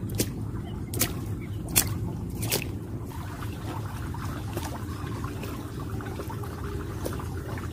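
Footsteps in rubber boots splashing through shallow water, about one step every 0.8 s. The first four steps are the loudest, and later steps come fainter and further apart, over a steady low background noise.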